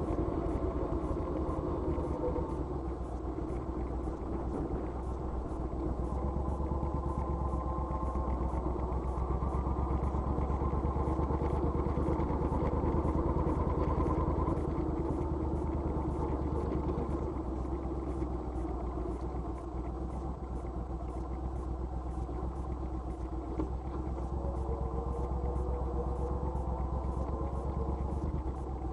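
Motorcycle engine running steadily with a deep rumble, its pitch slowly rising and falling.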